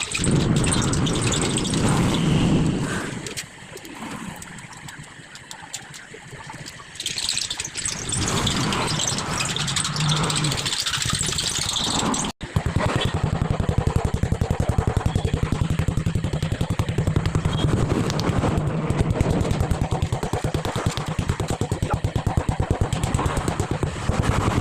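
An engine or motor running with a rapid, steady pulse, which starts after an abrupt cut about halfway through; before the cut there is a mix of changing mechanical noise.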